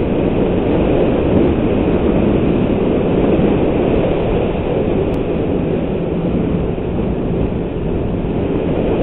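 Snowmobile engine and track running steadily at speed along a groomed trail, a loud, even drone.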